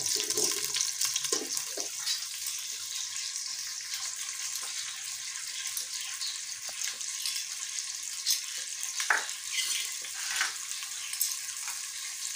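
Sliced onions frying in hot oil in an aluminium pot: a steady sizzle, with a few sharp knocks about eight to ten seconds in.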